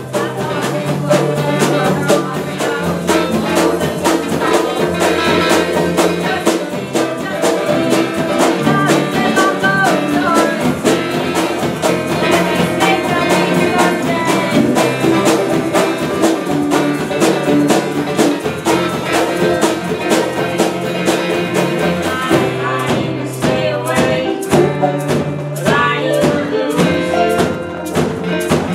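Live indie folk band playing an instrumental passage: banjo, acoustic guitar and electric guitars over a steady drum beat.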